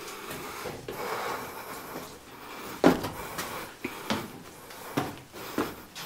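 Footsteps and scuffs of people clambering over the rocky floor of a limestone cave, with irregular sharp knocks about every half second in the second half.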